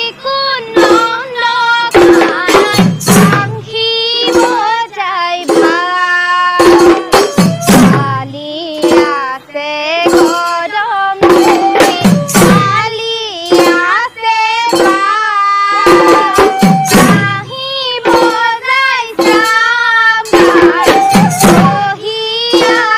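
Assamese dihanam devotional song: a group of young women singing in unison, with barrel drums beating a steady rhythm and hand-clapping.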